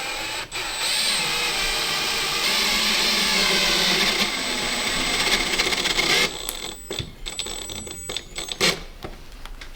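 A power tool running steadily for about six seconds and then stopping abruptly, followed by a few light knocks and one sharp click.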